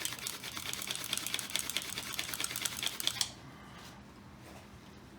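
Wooden hand-drill spindle spun fast between the palms, grinding against a hearth board in rapid, even strokes while drilling for a friction-fire ember. It stops abruptly about three seconds in.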